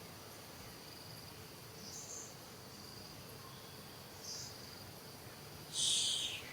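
Insects chirring steadily in a high, thin drone, with two faint short high calls and a louder, short high-pitched squeal near the end.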